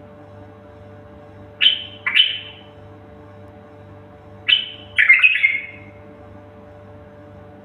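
A songbird singing short bursts of warbled notes, two phrases with a pause of about two seconds between them, over a steady low hum.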